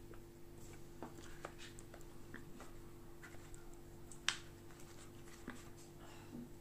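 Scattered small clicks over a steady low hum, with one sharp smack about four seconds in.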